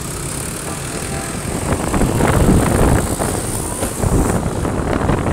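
Wind buffeting the microphone over motorbike and traffic noise while riding along a street, the rumble growing louder about two seconds in.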